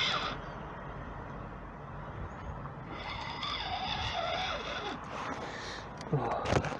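Wind rushing over the microphone with road traffic going by, swelling for a couple of seconds in the middle. A few knocks near the end as the camera is handled.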